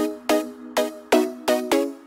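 Background electronic music: a quick run of short plucked notes, about three a second.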